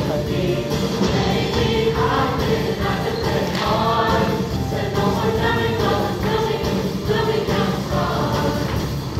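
Show choir of mixed voices singing with instrumental accompaniment.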